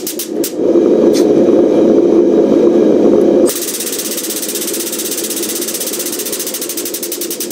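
Air-assisted hydraulic bottle jack's air-driven pump running with a rapid, even chatter of about six strokes a second as the press works hot steel. For about three seconds near the start the chatter gives way to a louder steady drone, with two short clicks, then the chatter resumes.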